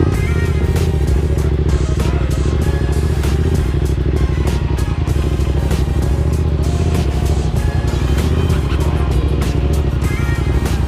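Background music over a small single-cylinder motorcycle engine running and revving steadily.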